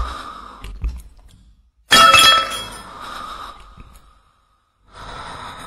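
Glass shattering: a sudden crash about two seconds in, with ringing shards dying away over the next couple of seconds.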